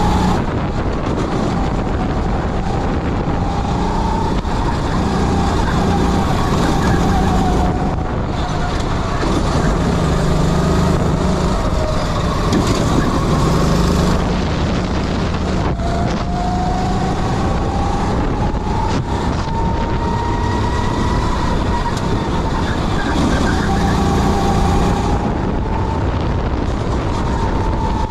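Kart engine running flat out, heard from on board. Its pitch climbs slowly along each straight and drops back when the throttle lifts for a corner, several times over.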